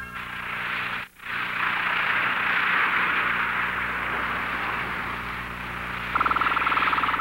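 Sea waves washing, a steady hiss, as a cartoon sound effect. About six seconds in, a rapid buzzing tone starts over it.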